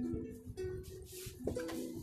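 Faint background music: a soft tune of held notes that change pitch every half second or so.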